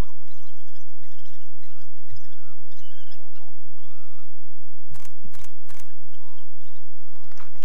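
African wild dog pups yapping and yelping together in rough play: a constant overlapping chatter of short, high, wavering calls, with three sharp louder sounds about five seconds in.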